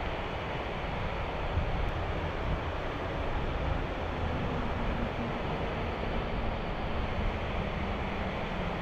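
Steady rushing of a rain-swollen, fast-flowing river, with some wind on the microphone.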